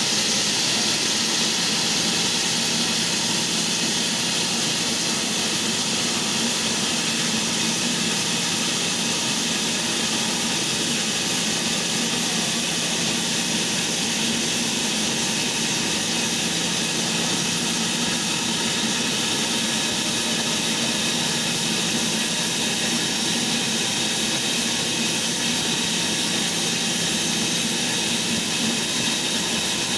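Electric sliding saw running steadily at one unchanging pitch, a whine over an even rushing noise.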